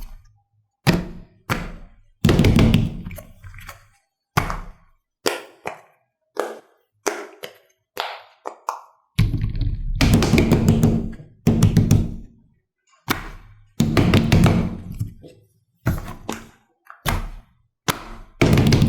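A series of separate knocks and thunks, about a dozen, irregularly spaced; some ring on for a second or two.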